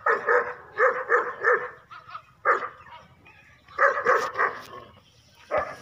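Dog barking in quick runs of short, high-pitched barks, about five runs with pauses between, the last a single bark near the end. The barking is playful.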